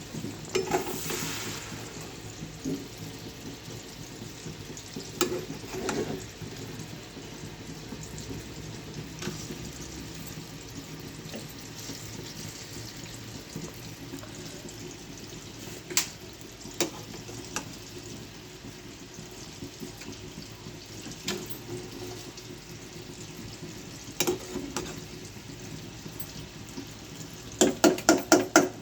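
Water running at a kitchen sink, with scattered clicks and clinks. Near the end there is a quick series of about six loud knocks.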